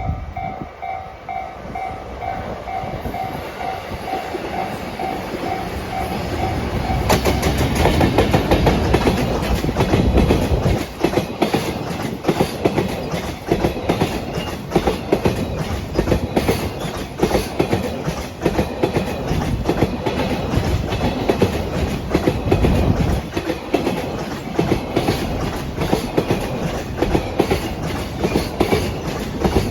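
Level crossing warning bell ringing in a steady pulse, about two strokes a second. About seven seconds in, a JR Freight EF210-100 electric locomotive arrives suddenly and passes. A long train of Koki container wagons follows, its wheels clacking over the rail joints in a quick, continuous rhythm.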